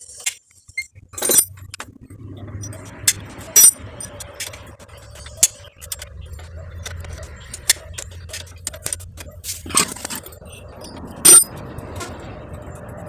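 Sharp metallic clinks and ticks of a spanner and loose metal parts as the rear drum-brake nut of a motorcycle is undone, a few louder clanks among them, over a faint low hum.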